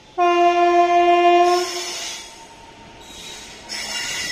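WAG-9 electric locomotive sounding its horn in one steady blast of about a second and a half as it approaches. Near the end, the rushing noise of the oncoming train rises sharply.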